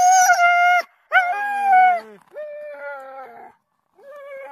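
Harnessed sled huskies howling and whining in a string of long, high cries, one after another, the loudest two at the start, with a brief pause near the end before the cries resume.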